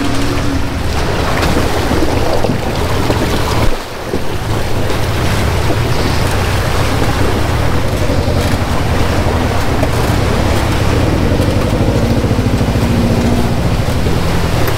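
Wind buffeting an action camera's microphone that has no windscreen, giving a heavy rumbling roar with a vehicle engine running underneath. A single sharp knock comes near four seconds in.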